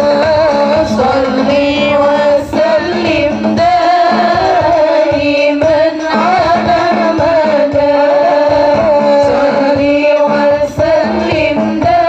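Sholawat, an Islamic devotional song, sung by a lead voice in a long wavering melody over a steady beat of hand drums.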